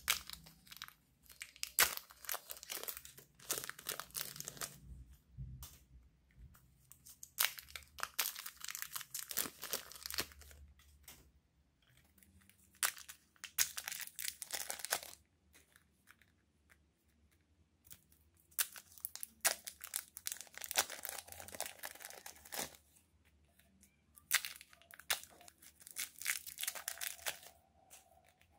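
Thin plastic wrappers crinkling and tearing as hands peel them off blocks of soft modelling clay. It comes in bursts of a few seconds with short quiet gaps between them.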